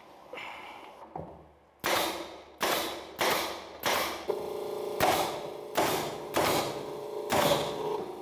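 Pneumatic nail gun firing nails into plywood, about ten sharp shots in quick succession at a little under two a second, starting about two seconds in. A steady hum joins about four seconds in.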